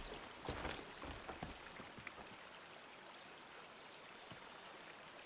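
Shallow river flowing over stones, a faint steady rush of water. There are a few dull thumps in the first second and a half.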